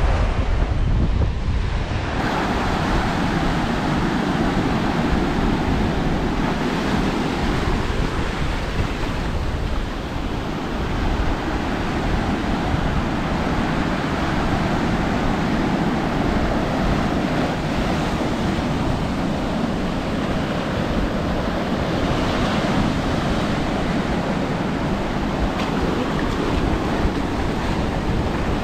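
Ocean waves breaking and washing up the shore in a steady rush, with wind rumbling on the microphone.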